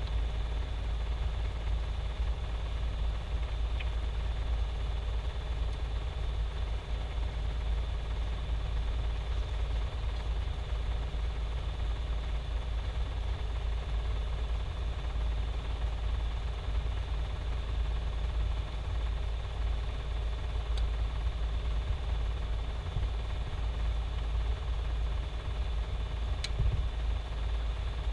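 Steady low mechanical hum, with a few faint single clicks.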